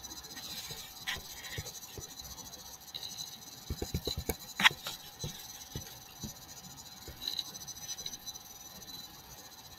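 Faint computer mouse clicks over a steady electronic hiss and hum: a quick run of clicks about four seconds in, ending in one sharper click, with a few scattered clicks elsewhere.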